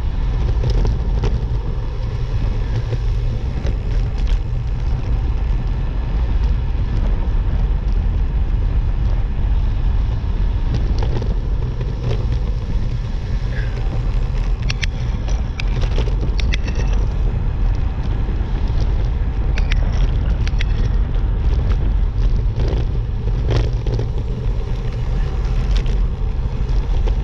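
Steady wind rush over the microphone and road rumble from travelling along a road at speed, with scattered small ticks and knocks.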